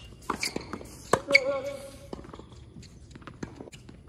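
Tennis ball hit with a racket on a hard court: fainter knocks early on, then a sharp crack of a return about a second in. Right after it, a sneaker squeaks briefly on the court surface, and fainter footsteps and knocks follow.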